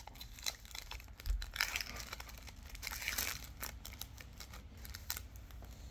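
Foil wrapper of a Pokémon trading card booster pack being torn open and crinkled by hand, in a run of short crackles that come thickest about a second and a half in and again around three seconds in.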